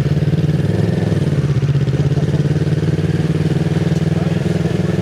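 Kawasaki Z650RS parallel-twin engine running at low, fairly steady revs through an IXIL MK2 full aftermarket exhaust with its dB killer fitted.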